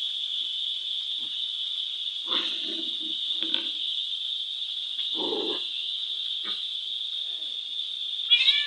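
A puppy play-fighting, growling and grunting in three short low bursts. Near the end comes a short high cry, over a steady high-pitched hum.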